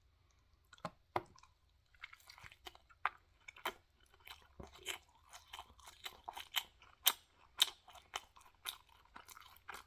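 A person biting into crunchy food, two sharp cracks about a second in, then chewing it with mouth close to the microphone, crisp crunches coming about twice a second.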